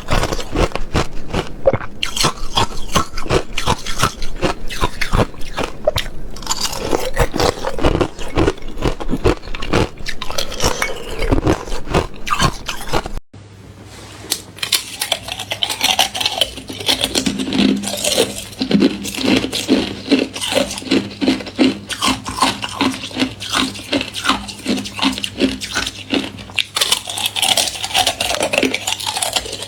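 Thin ice being bitten and chewed close to the microphone: dense, rapid crackling crunches in quick succession. A brief break comes about 13 seconds in, after which the crunching resumes over a faint steady low hum.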